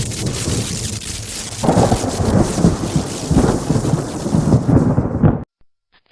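A heavily distorted bus horn sound-effect variation: a loud, noisy rumble with no clear horn tone, louder and pulsing from about a second and a half in, that cuts off suddenly about five and a half seconds in.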